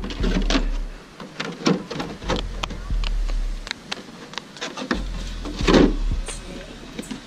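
Hands handling an RC car's hard plastic body shell: scattered clicks, taps and light scrapes of the plastic, with a louder scrape about six seconds in. A low rumble on the microphone comes and goes underneath.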